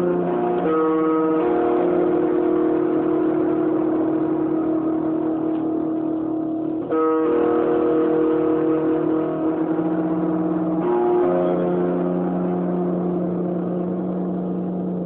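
Music of long held droning chords, steady for several seconds at a time, with the chord changing about a second in, at about seven seconds after a brief break, and again at about eleven seconds.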